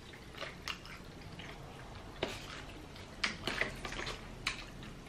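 A person chewing a mouthful of crunchy nacho tortilla chips, with a string of irregular crisp crunches.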